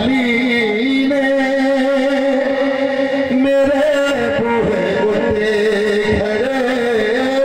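A man's voice singing long, drawn-out held notes of a devotional Punjabi verse into a microphone, amplified by a loudspeaker, the pitch wavering and stepping to a new note a few times.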